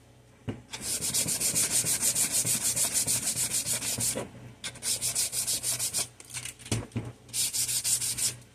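Hand sanding with sandpaper: quick back-and-forth scratchy strokes, several a second, in four bouts with short pauses between, and a couple of soft knocks in the last pause.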